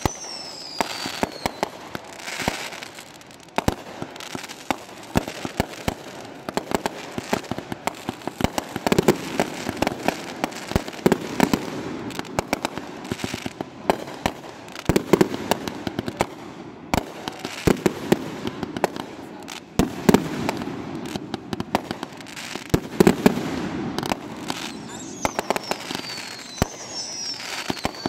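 Fireworks going off nonstop: rapid sharp crackling pops, heavier bursts every few seconds, and a whistle falling in pitch near the end.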